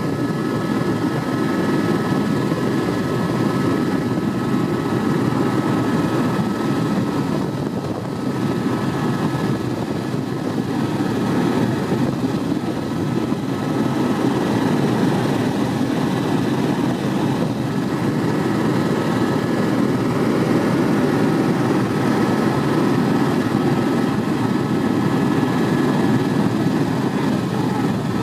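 Helicopter in flight: steady engine and rotor noise with a faint high whine, keeping an even level throughout.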